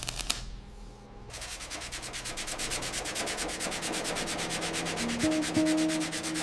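Metal being sanded: an even, rapid rasping of many fine strokes a second. It builds up about a second in and then runs steadily.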